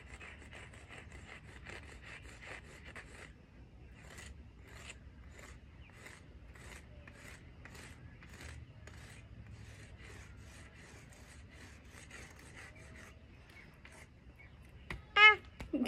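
Sidewalk chalk scraping across a concrete driveway as an area is coloured in: quick rubbing strokes for the first few seconds, then slower, separate strokes. A brief vocal sound near the end is the loudest moment.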